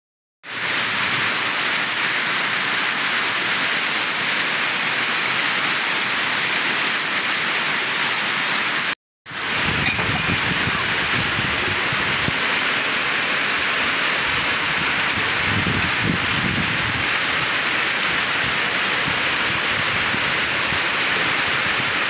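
Heavy tropical rain pouring down, a steady hiss, with strong wind gusting through the trees and rumbling low in the second half. The sound drops out briefly about nine seconds in.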